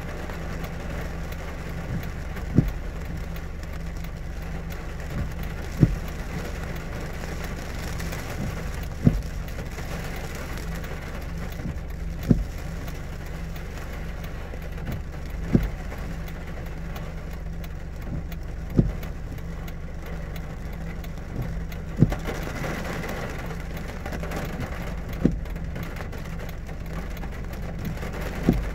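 Steady rain on a stopped vehicle whose engine idles with a constant low hum underneath. A short knock repeats evenly about every three seconds.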